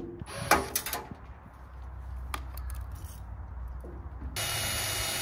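A few sharp metal knocks and taps on a steel Craftsman toolbox as its riveted latches and handle are worked off. Near the end a steady whirring noise starts.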